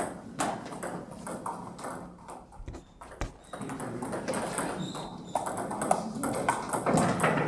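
Table tennis ball clicking off paddles and the table in quick, irregular exchanges during rallies, with more ball clicks from a neighbouring table.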